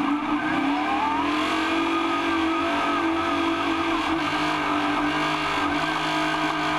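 Trophy truck's engine running hard at high revs, heard from inside the cab. Its pitch climbs over the first two seconds, then holds steady.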